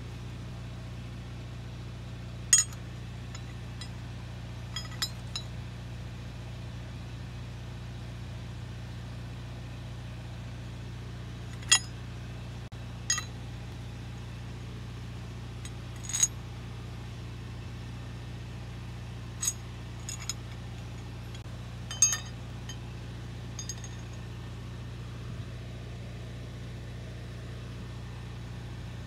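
Sharp metal-on-metal clinks, like tools and fittings being handled, about a dozen of them scattered unevenly, each with a short ring. They sit over a steady low hum.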